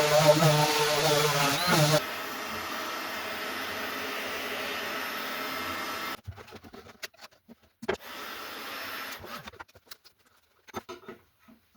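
A power tool's motor running loud and steady, cut off abruptly about 2 s in by a quieter steady whir that stops suddenly about 6 s in; then scattered knocks and taps, with a brief steady whir in between.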